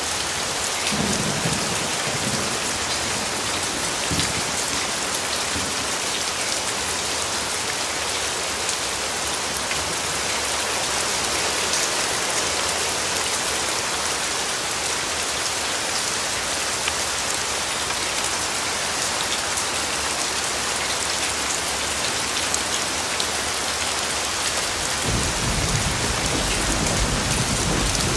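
Rain falling steadily, a dense even hiss. A low rumble comes in near the end.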